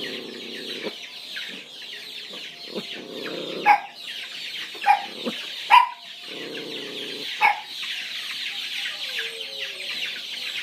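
A flock of chickens in an agitated racket: a dense, steady chatter of clucking, broken by four loud, sharp squawks in the middle, with two short stretches of low rustling noise.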